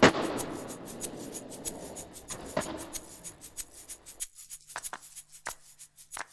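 A skateboard slams down on concrete, then rolls away with a fading wheel rumble and knocks into something about two and a half seconds in. After that come scattered faint clicks and a low hum.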